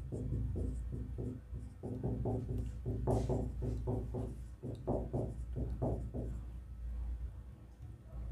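Marker pen squeaking on a whiteboard as a row of numbers is written in quick short strokes, which stop about two-thirds of the way through. A steady low hum runs underneath.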